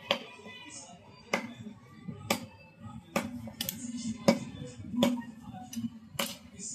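A knife chopping through chicken on a cutting block: about nine sharp chops at uneven spacing, roughly one a second, over background music.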